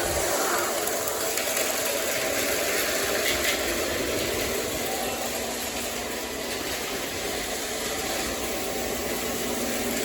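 O gauge model diesel locomotive running steadily on the layout, a continuous engine-like rumble and running noise with no distinct events.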